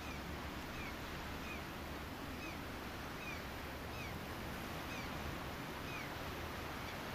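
A quiet outdoor background hiss, with a small bird giving short falling chirps about once a second.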